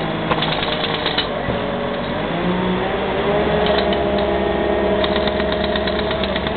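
Pneumatic jackhammer chattering on concrete in short bursts, over the steady running of a mobile crane's engine, whose pitch rises about three seconds in as the crane lifts.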